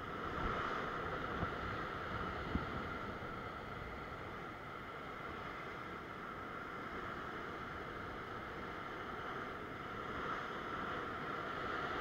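Ocean swell breaking and washing over the rocks in a steady rushing noise, with a few short low thumps in the first three seconds.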